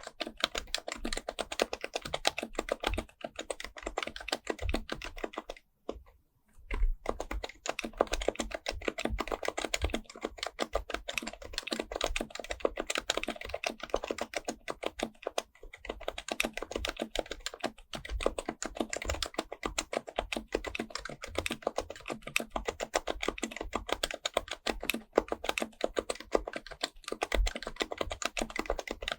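Fast continuous typing on an HHKB Professional Type-S keyboard with Topre electrostatic-capacitive keys. There is a brief pause about six seconds in.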